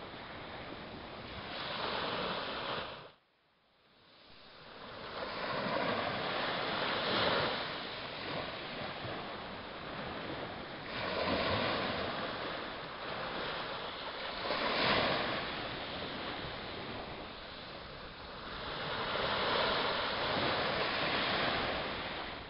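Small sea waves breaking and washing up the beach, the surf swelling and ebbing every few seconds. The sound drops out sharply about three seconds in and builds back up over the next two seconds.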